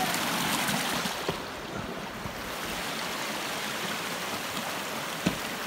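Shallow rocky stream running over stones: a steady rush of water, hissier for the first second or so and then softer. A short thump about a second in and a louder one near the end.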